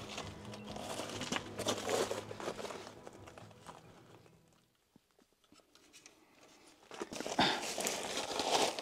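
Irregular crunching and scraping noises that fade out about four seconds in. Near silence follows for two to three seconds, then the crunching returns louder near the end.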